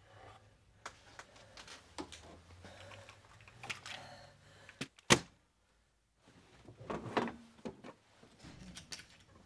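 Scattered knocks, clicks and rustles of objects being handled, with one sharp, loud click about five seconds in, then about a second of dead silence before the handling noises resume.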